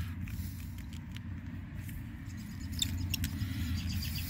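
Fingers rubbing and scraping grit off the threaded end of a garden hose close to the microphone: faint scratching and light ticks over a steady low rumble, with a quicker run of ticks near the end.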